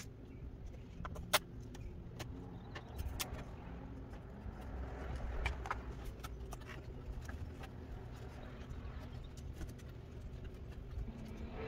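Scattered sharp clicks and light clatter of a PC motherboard, its parts and power cables being handled and fitted on an open-frame GPU mining rig, over a low steady rumble. The loudest click comes about a second in.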